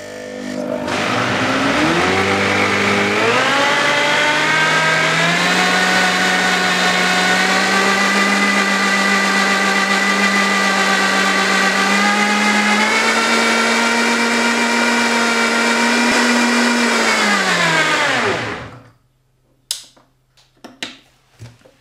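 Harrexco high-speed blender motor, blending carrot and apple with water, spinning up over the first few seconds as the speed dial is turned. It runs steadily, steps up a little in pitch about halfway through, then winds down and stops about 18 seconds in. A few light knocks follow.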